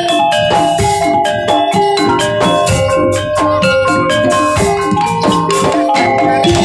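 Jaranan dance music played live: a gamelan-style ensemble of struck pitched percussion and drums in a fast, busy rhythm of quick repeated notes.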